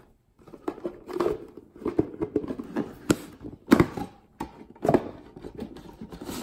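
Cardboard watch boxes and packaging handled on a stone countertop: rustling and sliding with a series of irregular sharp knocks as boxes are moved and set down.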